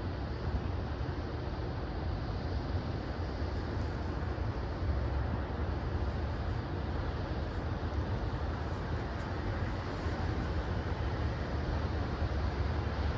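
Steady low rumble of a heavy vehicle, holding an even level with no rises or clatter.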